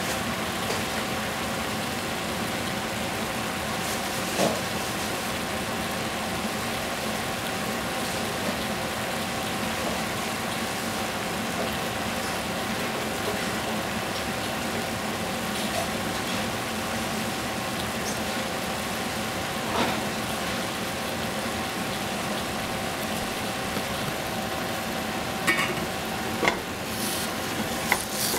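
Chopped bok choy sizzling steadily in a stainless steel pot, with an occasional pop. Near the end a wooden spatula stirs it, clattering against the pot.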